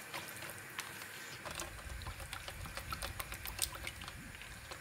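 Wire whisk beating thick yogurt in a plastic bowl: quick, irregular clicks and scrapes of the whisk against the bowl as the lumps are whisked smooth.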